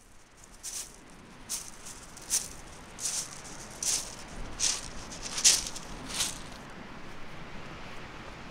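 A shaker-type rattle shaken in a slow, even beat, about eight sharp shakes, then it stops about three-quarters of the way through, leaving a faint steady hiss.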